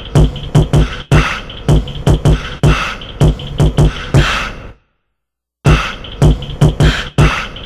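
Hip-hop drum beat of heavy kicks and sharp snare hits in a quick rhythm, which stops dead for just under a second a little past halfway and then comes back in.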